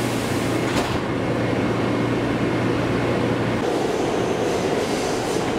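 R160 subway car heard from inside while running: a steady rumble of wheels and running gear, with a low hum that drops out about three and a half seconds in, and one sharp click about a second in.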